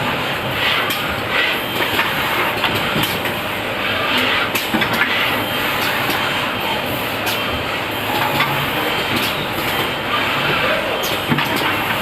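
Laser welding: a steady loud hiss with irregular crackling clicks.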